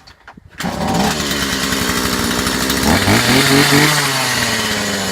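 Two-stroke chainsaw catching on a pull about half a second in and running, its engine speed rising about three seconds in and then holding. It is a saw sold as a non-runner, now shown to run.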